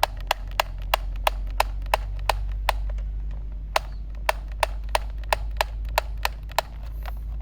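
Toy gun clicking, a quick, even series of sharp plastic clicks at about three a second, with a pause about three seconds in. The clicks stop shortly before the end.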